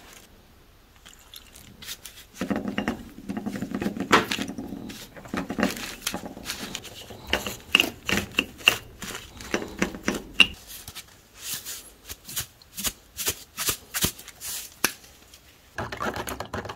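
A small brush scrubbing a revolver cylinder in a ceramic dish: quick scratchy strokes and sharp ticks of bristles and metal against the dish. Near the end, water sloshing as a metal rod stirs an electrolysis bath.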